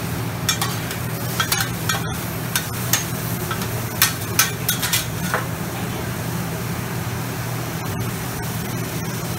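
Shrimp and vegetables sizzling on a Mongolian barbecue flat-top griddle as metal spatulas stir and scrape them, with sharp clacks of metal on the griddle through the first half. A steady low hum runs underneath.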